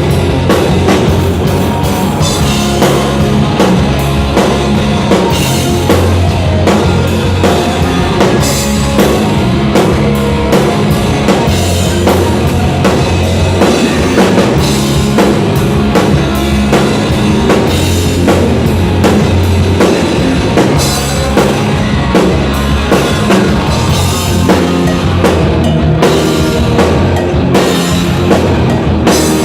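Live rock band playing, with the drum kit loud and close, kick drum and cymbals prominent over distorted electric guitars and bass.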